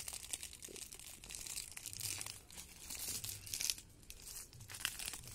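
Irregular crunching and crackling of dry broken shells underfoot on a shell-covered bank, sharpest about three and a half seconds in.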